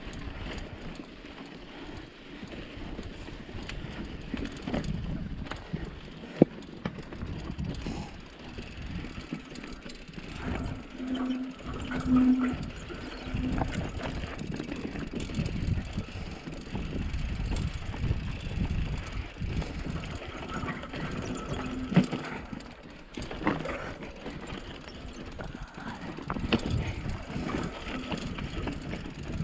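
Mountain bike descending a rocky, loose, dusty trail: tyres rolling over dirt and rock and the bike rattling, with a few sharp knocks from hits on rocks.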